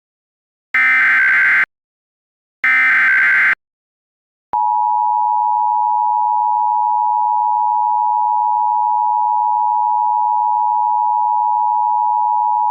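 Emergency Alert System tones: the last two of three SAME header data bursts, each a harsh digital chirping about a second long. After a second's gap, the steady two-tone EAS attention signal starts about four and a half seconds in and holds.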